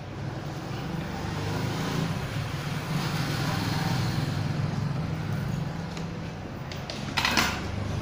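Low rumble of passing road traffic, swelling and fading over several seconds, with a brief clatter near the end.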